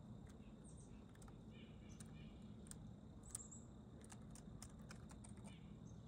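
Faint, irregular light taps and clicks, most of them in the second half, from a white-breasted nuthatch on a weathered wooden deck rail, along with a few short, soft, high bird chirps.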